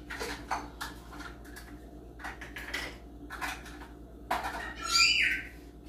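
Measuring cups and kitchen utensils clinking and knocking, a series of light clatters. About five seconds in, a pet bird gives a short, loud call.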